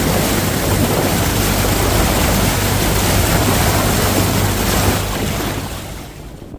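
Strong wind and water noise over the steady low hum of a boat engine, fading away from about five seconds in.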